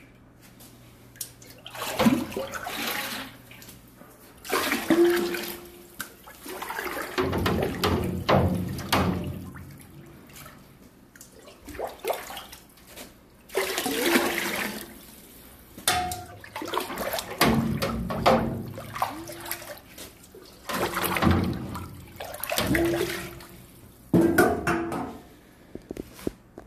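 Concentrated broth poured by the scoopful into a stockpot of purified water to dilute it four parts to seven: a run of about nine splashing pours, each a second or a few seconds long, with short glugs.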